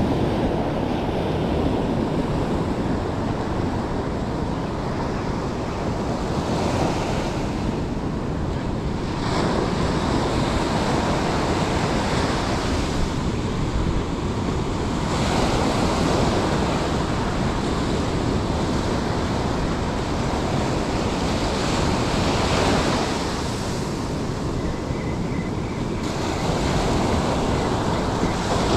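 Ocean surf breaking and washing up a sand beach, a steady rush that swells every few seconds as each wave comes in.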